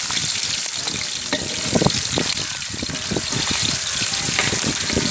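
Whole spices and green chillies sizzling in hot oil in a large aluminium pot, with a steady hiss. A long wooden paddle stirs and scrapes against the pot in irregular knocks, heaviest about two seconds in.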